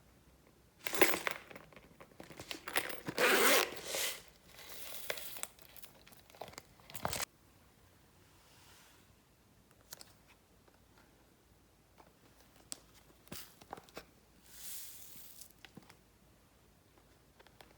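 Slime being squished and worked by hand, giving irregular crackling, squelching bursts. The bursts are loudest in the first seven seconds, thin out to occasional clicks, and come back briefly near the end.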